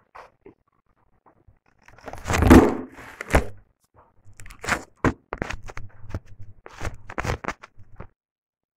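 Cooked crab shells being cracked and crunched by hand, a string of sharp cracks and clicks, with a louder knock and rustle about two seconds in as the recording phone is handled.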